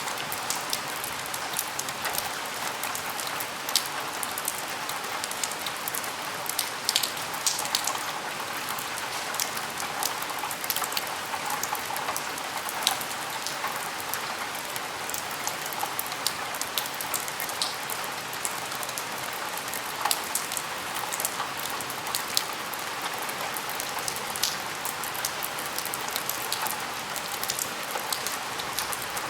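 Steady rain falling at a window, a constant hiss with many separate drops tapping sharply against the glass and sill.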